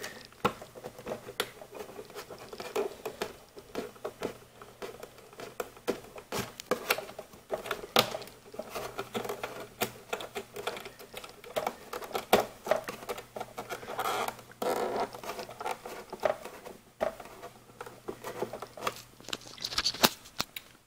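Irregular light clicks and scratching as fingers turn the thumbscrews of a DVI-D cable plug seated in a monitor's port, with plastic rubbing on plastic.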